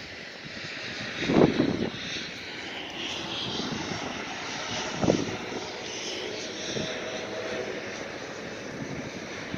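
Distant jet airliner engines running with a steady rush, and a faint engine tone coming in during the second half. Two short low buffets on the microphone come about a second and a half in and again about five seconds in.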